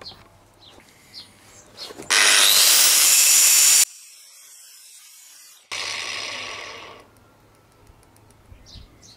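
Hand-held angle grinder grinding a small steel lathe cutting tool to shape. A loud, even grinding pass of about two seconds begins about two seconds in and stops abruptly. A second, shorter burst about six seconds in fades away over a second.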